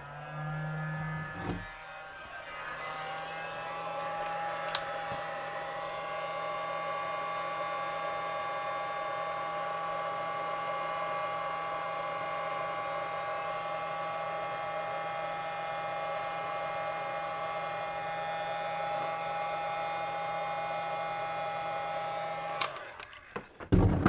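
Handheld heat gun running with a steady fan whine while it shrinks heat-shrink tubing onto a camera cable. It settles to a slightly higher pitch after the first few seconds, gives one click about five seconds in, and is switched off just before the end.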